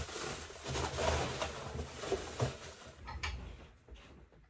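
A clear plastic bag rustling and crinkling as it is handled, dying away after about three seconds, followed by a few light knocks.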